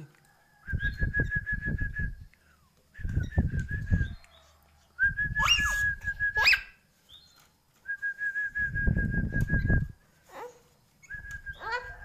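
A person whistling the same warbling note five times, each phrase about a second and a half long, with breath noise under it. Two quick, sharp rising chirps cut across the third whistle.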